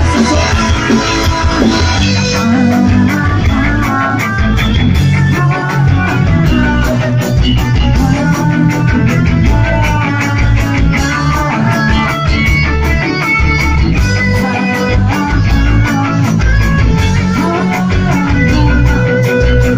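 A pop-punk band playing live at full volume, with electric guitars over a steady drum-kit beat.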